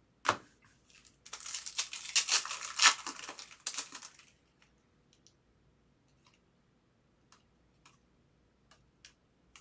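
Foil trading-card pack wrapper being crinkled and torn open, a dense crackle for about three seconds, followed by a few soft, scattered clicks of cards being handled.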